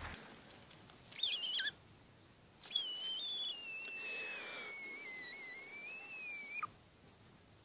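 A small frog's high-pitched distress scream as a kitten noses at it: a short, wavering squeal about a second in, then one long scream of about four seconds that sags and rises again before dropping off at the end.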